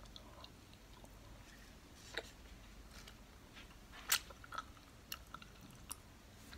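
Quiet chewing of a candy: scattered small wet mouth clicks, a sharper one about two seconds in and the loudest about four seconds in.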